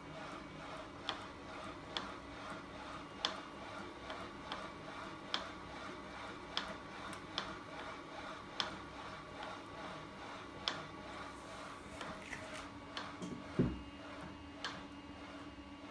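Homemade battery- and electric-motor-driven crank-and-linkage machine with a flywheel running. A steady low hum is broken by a sharp metallic click about once a second as the linkage cycles. There is one heavier knock near the end.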